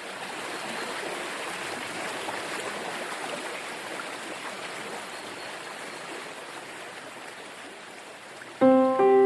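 Steady rushing of flowing stream water, fading in at the start. About eight and a half seconds in, sustained piano notes enter over it and are much louder.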